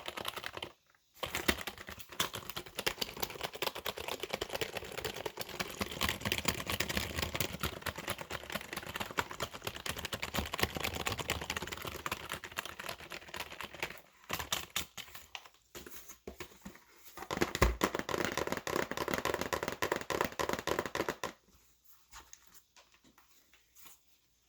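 Fast, hard typing on a computer keyboard: a dense run of rapid keystrokes, broken by a short pause about a second in and a few brief stops in the middle, with one low thump among them. The typing stops a few seconds before the end, leaving only a few faint taps.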